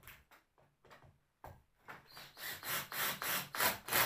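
Cordless drill-driver driving a number 10 saddle screw through the layers of leather into the saddle tree, in a run of short bursts about three a second that grow louder over the second half.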